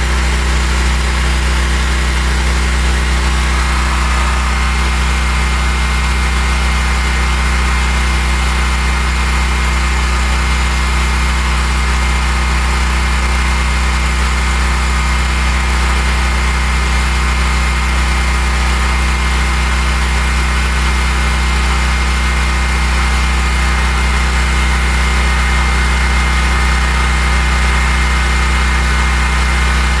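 Portable generator engine running steadily at a constant speed, with a strong low hum.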